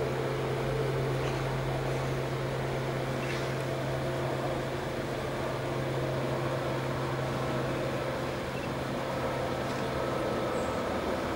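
Steady low mechanical hum with a constant pitch over a light hiss; its lowest tone fades away about ten seconds in.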